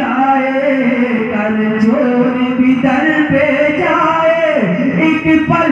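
A man singing a naat, the Urdu devotional poem in praise of the Prophet, solo through a microphone and PA, holding long notes that slide slowly in pitch.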